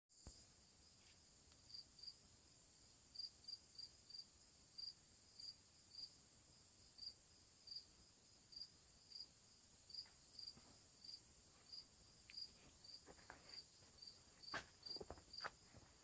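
Faint insects calling: a steady high drone with a short chirp repeating about one and a half times a second. A few soft knocks come near the end.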